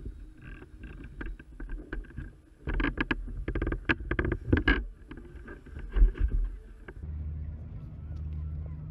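A small sailboat on its mooring: irregular knocks and sloshing as water slaps against the hull. About seven seconds in this gives way abruptly to a steady low hum.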